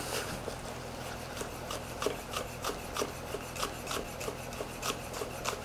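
Chef's knife thinly slicing scallions on a wooden cutting board: even, soft knife taps against the board, about three a second.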